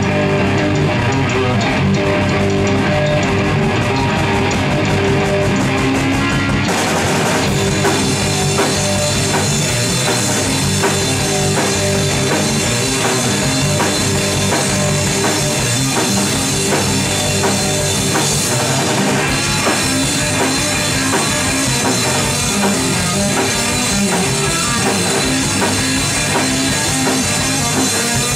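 Heavy rock band playing live on electric guitar, bass guitar and drum kit. The guitars play alone at first, and the drums come in with the full band about seven seconds in.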